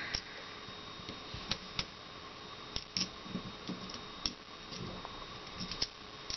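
Light, irregular clicks and taps of small steel parts against a Beretta 21A Bobcat's frame as the sear is worked into place, about seven separate clicks over a faint room hum.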